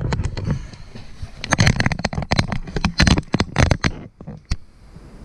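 Handling noise: an irregular run of sharp clicks, knocks and rustles, busiest from about a second and a half in until about four seconds in, then quieter.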